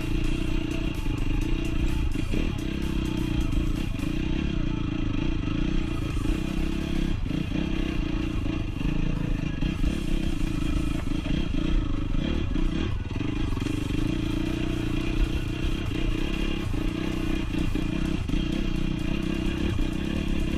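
Honda CRF dirt bike's four-stroke engine running continuously while being ridden off-road, with frequent short knocks and clatter throughout.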